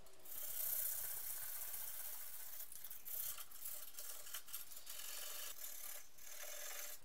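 Hand sanding of body filler on a welded steel body repair: a dry, rasping scrape of abrasive paper across the panel in uneven strokes, starting about a quarter-second in.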